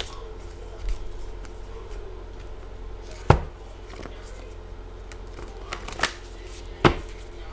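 Hand-made paper cards being shuffled and handled, with soft papery rustling and three sharp snaps, about three, six and seven seconds in. A faint steady hum sits underneath.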